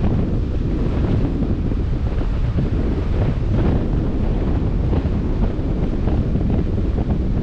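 Wind buffeting the microphone with a steady low rumble over the wash of open sea water, with brief splashes every second or two.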